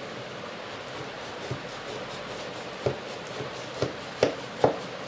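Kitchen knife cutting set sugar-and-coconut barfi in a metal tray: about five sharp knocks as the blade strikes the tray, the loudest three close together near the end, over a steady low hiss.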